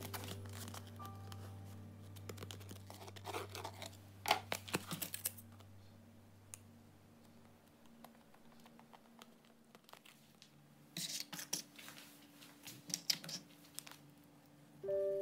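Hand work on model-aircraft kit parts: two clusters of short scratching, tearing and clicking sounds, about four seconds in and again about eleven seconds in. Faint background music with a low hum fades out under them.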